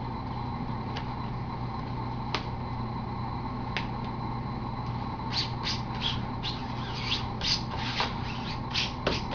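Fingers rubbing a ClearPro CARBN dry-apply vinyl skin flat onto a MacBook's palm rest: a few faint ticks, then from about halfway on quick scratchy rubbing strokes, two or three a second, over a steady low hum.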